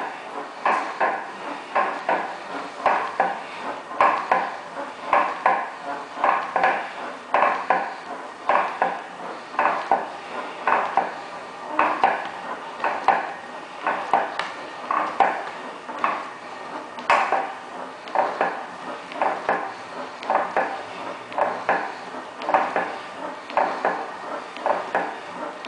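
Yowza Captiva elliptical trainer in use, giving a repeated knock in a steady rhythm with the strides, a few clicks a second. It is an unwanted knocking noise the owner reports as a fault in the machine.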